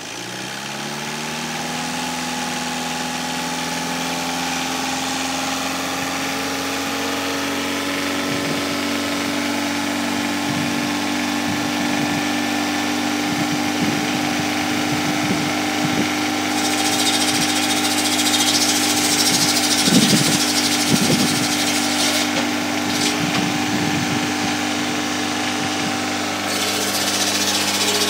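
Peugeot car diesel engine driving the large circular blade of a homemade firewood saw. It comes up to speed in the first two seconds and then runs steadily. A little past halfway, and again near the end, the blade cuts through logs, adding a high-pitched sawing noise over the engine.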